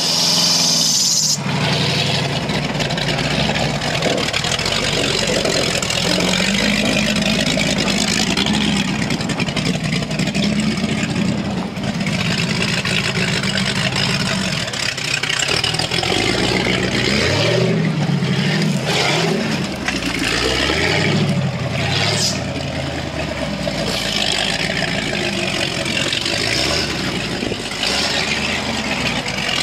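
Off-road buggy's engine revving unevenly, rising and falling in pitch, as it climbs a steep dirt slope.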